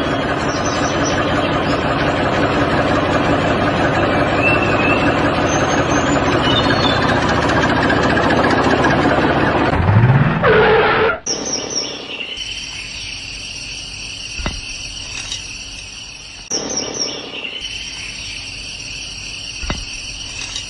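Tractor engine running steadily, with birds chirping over it. About eleven seconds in the engine cuts off suddenly, leaving a quieter, steady high-pitched background with a few chirps.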